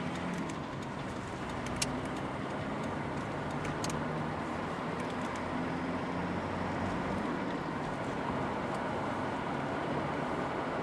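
Steady driving noise of a moving car, heard from inside: engine hum with tyre and road noise, its pitch shifting a little as the car gathers speed. A sharp click about two seconds in.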